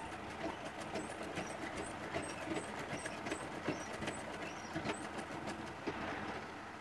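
Sewing machine stitching a seam through white cotton cloth: a quick, uneven rhythmic clatter of the needle mechanism. This is the trial seam sewn to show a looser, wider stitch than the dense one.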